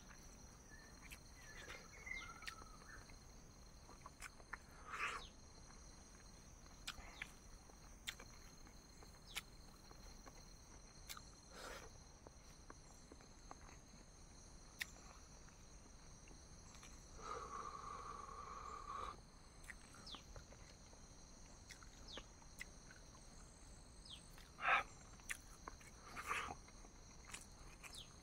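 Quiet eating sounds: soft chewing with scattered small clicks and taps, the sharpest about 25 seconds in, over a steady faint high-pitched whine. A short hum of about two seconds comes about two thirds of the way through.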